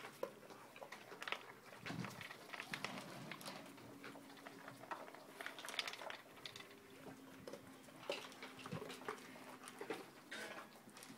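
A dog nosing at a hard plastic paw-shaped puzzle feeder for its food: scattered light clicks and knocks of nose, teeth and kibble against the plastic. A faint steady hum runs through the middle.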